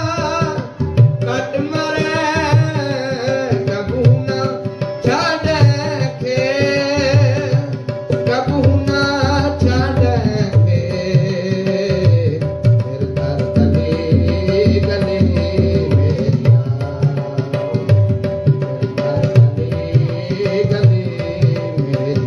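Sikh kirtan: a voice sings over a harmonium's steady chords and a tabla beating the rhythm. About halfway through the singing drops out, and the harmonium and tabla play on.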